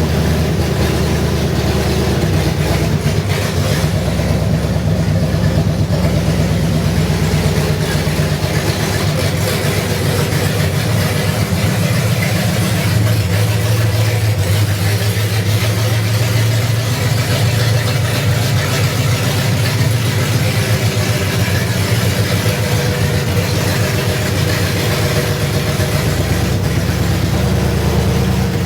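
Ford FE big-block V8 of a 1973 Ford F100 running steadily and loud on open headers with no exhaust, during the run that breaks in its new flat-tappet camshaft.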